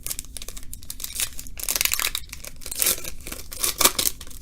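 A foil trading-card pack wrapper is torn open, with crinkling and ripping that peaks twice, a little under two seconds in and again near the end.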